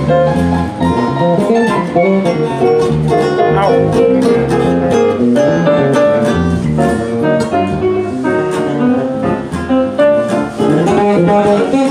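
Live band jam: a Nord Electro 3 stage keyboard, an electric bass guitar and a strummed acoustic guitar playing together with a steady beat.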